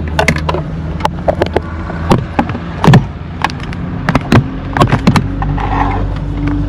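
Car engine running while driving, with many sharp knocks and rattles over it. About halfway through, a steady engine tone comes in and rises slightly.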